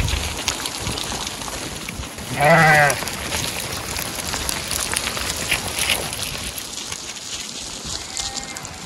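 A flock of sheep on a stony slope: one loud, wavering bleat about two and a half seconds in and a fainter bleat near the end, over a scatter of hoof clicks on loose stones.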